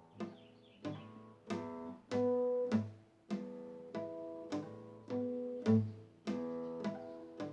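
Instrumental music with plucked and bowed string sounds over a deep bass: a melody of separate notes, each struck sharply and left to ring, about one every half second.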